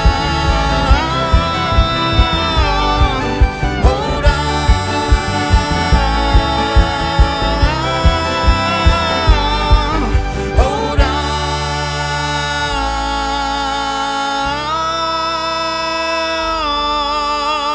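Bluegrass band playing live with singing over a steady stomping beat, about two and a half beats a second. About eleven seconds in, the beat stops and the band holds a final chord, which slides down in pitch near the end.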